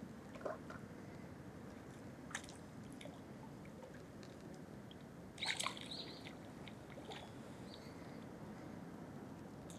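Quiet pondside ambience with a steady low hum, a few faint clicks, and a brief crackling rustle about five and a half seconds in.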